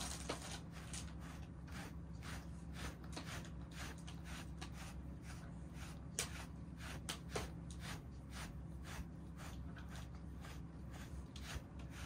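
Pet brush stroking through a cat's fur, a quick run of soft brushing strokes, a few each second.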